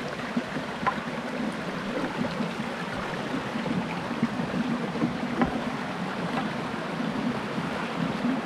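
Mountain creek rushing and cascading over rocks, a steady noise, with a few light knocks scattered through it.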